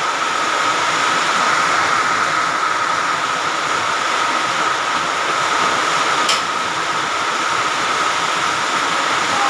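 Heavy rain pouring down in strong wind, a loud steady rushing with a steady high tone running through it. A single sharp click about six seconds in, as the door to the roof is opened.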